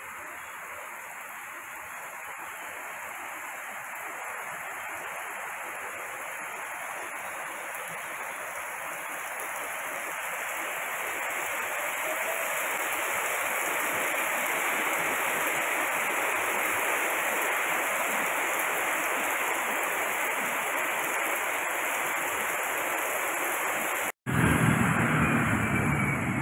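Heavy rain pouring steadily, an even hiss that grows louder over the first dozen seconds and then holds. About two seconds before the end the sound cuts out for an instant and a louder, low vehicle engine rumble takes over.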